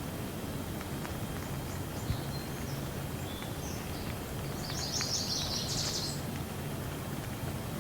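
Steady rain with a low rumble underneath, while small birds chirp, breaking into a quick run of chirps about five seconds in.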